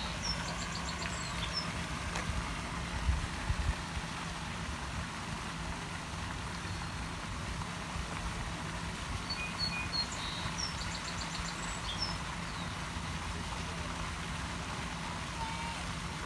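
Steady outdoor background noise with a low hum and rumble, a few low thumps about three seconds in, and a small songbird singing the same short chirping phrase twice, about ten seconds apart.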